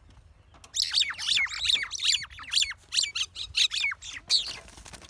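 Two fighting birds giving harsh, rapid squawking calls, short high notes sweeping downward about three times a second. The calls start under a second in and ease off near the end.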